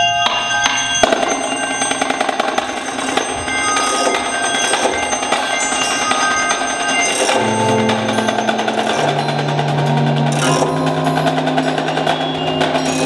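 Indoor drumline playing: marching snares and tenors in fast, dense rhythmic passages over marimbas and vibraphones. About halfway through, held low bass notes come in under the mallet notes.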